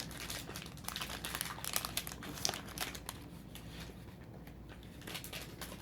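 Foil booster pack crinkling as it is handled and opened, a run of small crackles that thins out over the last couple of seconds.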